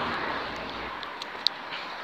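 Engine noise of a passing vehicle fading away into a low hiss, with one sharp click about one and a half seconds in.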